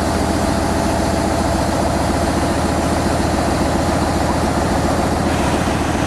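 NER Y7 0-4-0 tank steam locomotive standing with steam hissing from around its wheels, over a steady low rumble. The higher hiss drops off about five seconds in.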